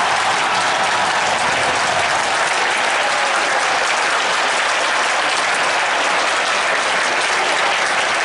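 Large stadium crowd of football supporters applauding steadily, celebrating their team's goal.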